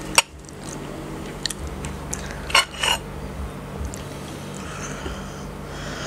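Metal fork clinking and scraping against a ceramic plate of spaghetti: a sharp clink just after the start, a few light ticks, and a louder pair of clinks about two and a half seconds in.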